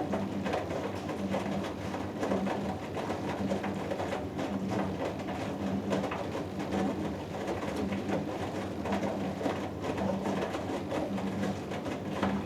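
Hoover Dynamic Next DXA610IW3 washing machine tumbling its wash in a 90 °C cotton cycle: a steady swishing wash noise with a low motor hum that swells and fades every second or two.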